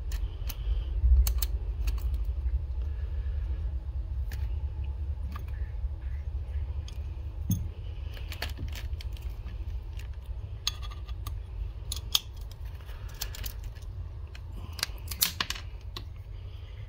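Scattered light metallic clicks and taps as the parts of a Grayman SATU folding knife, its handle scale and blade assembly, are handled and fitted back together, over a steady low rumble.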